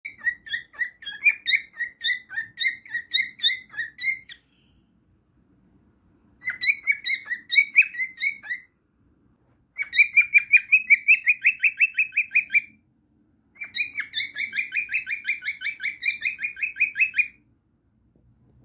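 Cockatiel singing in four runs of rapid, repeated chirps, each run a few seconds long, with short pauses between them. The later runs are faster and denser.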